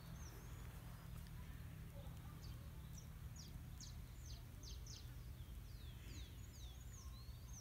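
Small birds chirping faintly outdoors: scattered short high chirps and quick falling whistles, with a low steady rumble underneath.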